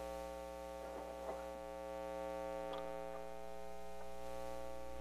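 Steady electrical mains hum from a switched-on amplifier, a low buzz with many overtones, with a few faint clicks and ticks.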